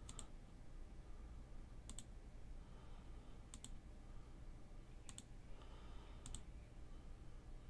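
Faint computer mouse clicks: five short clicks, about one every second and a half, each a quick press-and-release pair.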